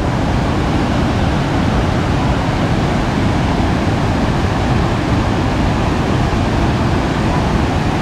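Steady, loud rush of a wide waterfall and its rapids, water pouring over rock cascades.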